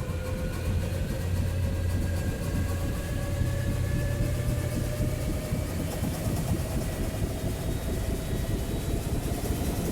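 Arc reactor sound effect: a steady low machine hum with several thin tones slowly rising in pitch over a hiss.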